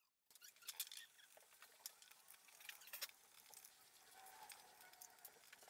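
Faint, scattered clicks and light scraping of metal as phase-wire ring terminals are handled and fitted onto a motor controller's threaded stud terminals.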